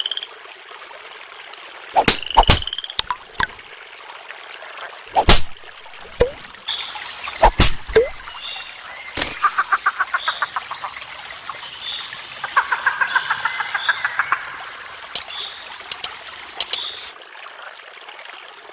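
Cartoon sound effects voicing animated damselflies: scattered sharp clicks and a short rising chirp, then two rapid rattling, croak-like trills about ten and thirteen seconds in, with high chirps over a steady hiss of nature ambience.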